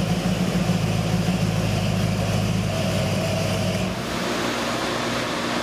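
Chevy 383 stroker V8 with a Holley 750 carburetor and hydraulic roller cam idling steadily at about 800 rpm on an engine dyno, after a completed sweep pull.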